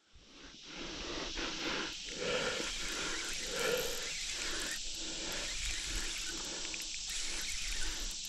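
Steady outdoor insect chorus, a continuous hiss-like drone, with a few faint ticks over it.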